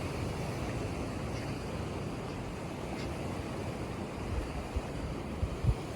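Steady wash of sea surf, with wind buffeting the microphone in short low gusts from about four seconds in.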